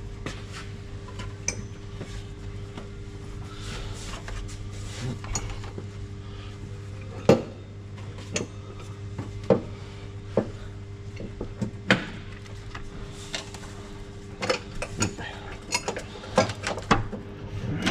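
Steel side-step mounting plate and hardware clinking and knocking against the chassis rail as it is worked into place by hand. Irregular sharp metal taps and clicks, the loudest about seven seconds in and a quick run of them near the end, over a steady low hum.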